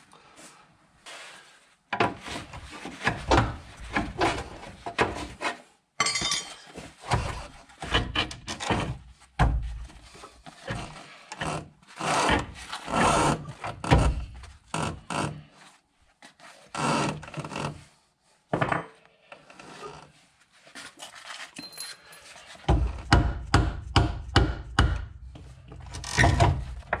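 Irregular knocks, clunks and scraping as a van's front hub, brake disc and ABS sensor wire are handled and shifted during front suspension work, in bursts with short pauses between them.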